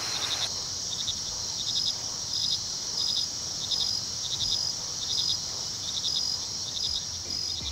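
Night insects, crickets among them, chirping: short trills of a few quick pulses repeating about every half second over a steady high-pitched insect buzz.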